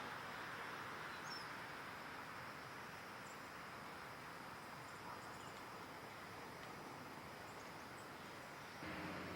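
Quiet outdoor ambience: a steady hiss with a few faint, short, high bird chirps. Near the end a low steady hum sets in.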